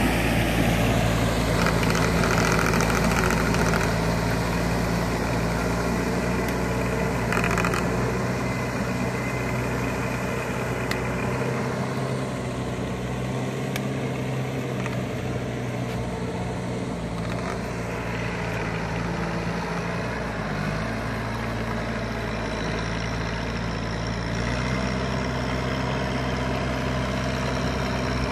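Tractor engine running steadily while working a flooded rice paddy. It eases off a little in the middle, its note rises slightly about two-thirds of the way through, and it gets louder again near the end.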